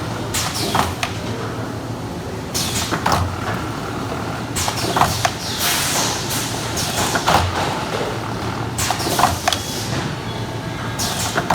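Lollipop sealing machine running: a steady motor hum with short hissing, clacking bursts repeating every second or two, often in pairs, as the machine cycles.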